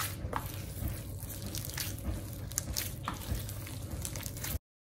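Sticky naan dough squishing as a gloved hand squeezes and kneads butter into it in a stainless steel bowl, with a few faint clicks; the sound cuts off suddenly near the end.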